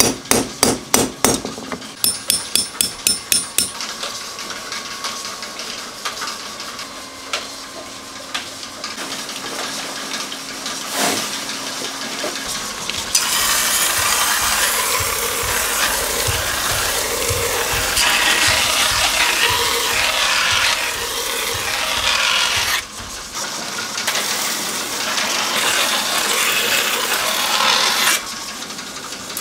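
A hammer taps a steel kitchen-knife blade in two quick runs of ringing strikes, straightening it so it lies true. After a quieter stretch of light scraping, the blade is pressed against a large motor-driven sharpening-stone wheel, giving a loud, steady grinding rasp that starts about halfway through and stops shortly before the end.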